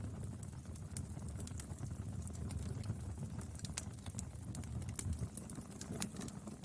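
Firewood burning: a steady low rumble of flames with frequent, irregular sharp crackles and pops from the wood.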